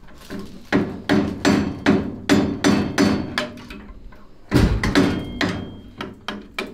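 Hammer blows on the end of the drag rail's old rear axle, driving it out through its bearing hubs: a quick series of metal-on-metal strikes, about two a second, then a short pause and a few more, heavier ones.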